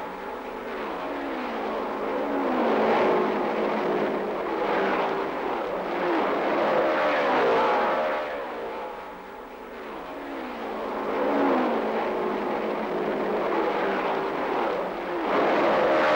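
Several 1954 Grand Prix racing cars passing one after another, each engine note swelling and then falling in pitch as it goes by.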